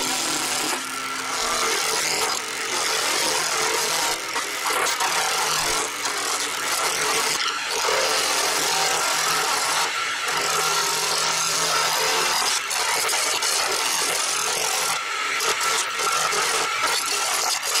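Record Power wood lathe spinning a resin pen blank while a hand-held turning tool cuts it, a steady scraping noise of shavings being peeled off.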